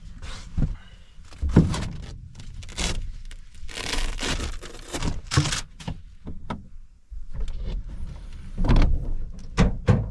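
Irregular rustling and several knocks and thuds inside a truck, the loudest thuds close together near the end, over a constant low rumble.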